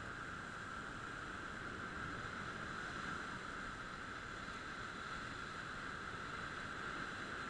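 Steady, even rush of sea surf breaking on rocks, with wind, heard as a constant hiss without single wave crashes standing out.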